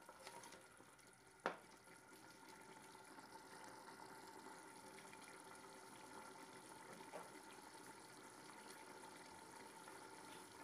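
Mutton curry bubbling and sizzling faintly in ghee in a pot as the meat and masala are browned. A single sharp tap about a second and a half in.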